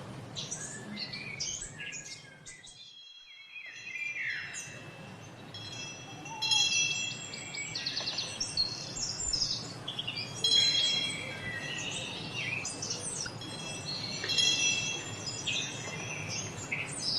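Birds chirping and singing, with a set of chimes ringing several tones together, struck again in clusters and loudest about six and ten seconds in, over a steady low background hiss.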